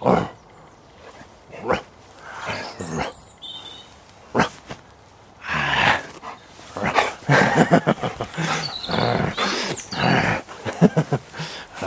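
Golden retriever vocalising in play: a few short barks, then a long run of pulsing growls from about halfway.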